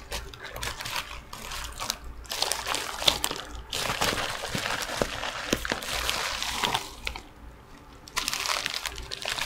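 Crinkling and rustling of a bubble-padded mailing envelope and bubble wrap being opened and unwrapped by hand, with many small crackles. There are short pauses, the longest lasting about a second, some seven seconds in.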